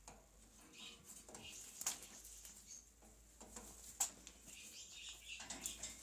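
Parakeet's beak and claws clicking and scraping on wire cage bars as it climbs. There are two sharper clicks, one about two seconds in and one about four seconds in, and a few faint bird chirps.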